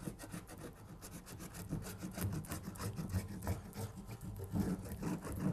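Base wax rubbed by hand onto the sandpaper-roughened kick zone of a Fischer classic ski's base, in many quick, short scraping strokes.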